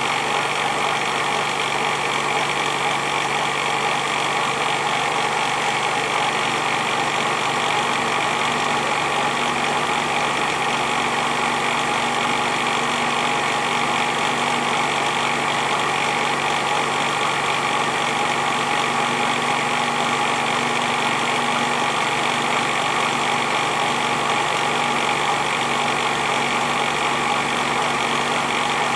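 Emco Compact 5 bench lathe running steadily, its spindle drive turning the work while the tool takes a slow, fine cut fed by a stepper motor.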